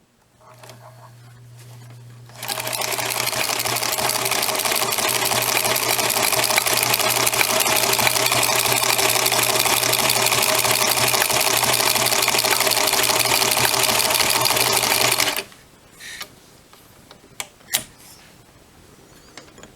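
Singer 222K sewing machine with a zigzag attachment fitted, sewing a zigzag stitch along a fraying strap edge to stop it fraying. A low hum for about two seconds, then the machine runs steadily for about thirteen seconds and stops suddenly; a few sharp clicks follow.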